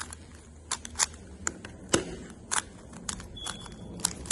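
3x3 Rubik's cube being turned by hand: a quick, irregular run of about a dozen sharp plastic clicks and clacks as the layers snap round.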